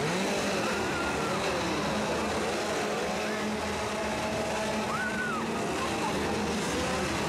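Several gas chainsaws running together, their engines revving up and down over one another, with crowd voices mixed in.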